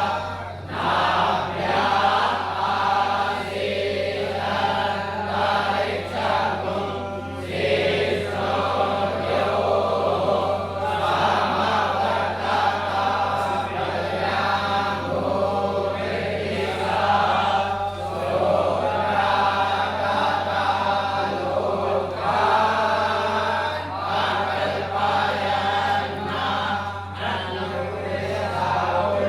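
Many voices chanting Sanskrit mantras together in unison, a continuous recitation with brief regular pauses for breath, over a steady low hum.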